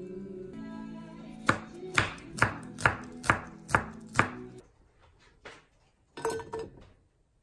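Cleaver slicing garlic cloves on a wooden cutting board: seven sharp knocks of the blade on the board, about two a second, over background music that stops about four and a half seconds in. A short clatter follows near the end.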